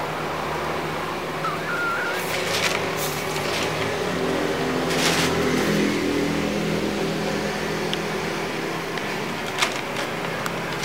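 Steady hum of a running engine or motor, swelling a little about four to six seconds in, with a few short rustles and clicks over it.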